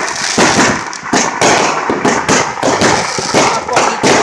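Aerial fireworks going off in quick succession: a rapid string of sharp bangs and pops, about three or four a second.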